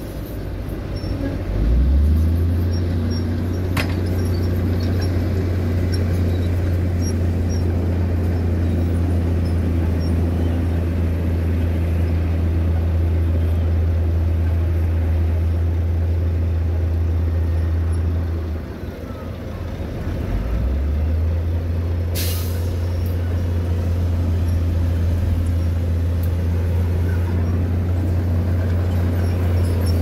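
Heavy diesel dump truck engine running steadily at raised revs, as when driving the hydraulic tipper, easing off for a couple of seconds about two-thirds of the way through and then coming back up. A short, sharp air hiss from a truck's air brake system sounds soon after.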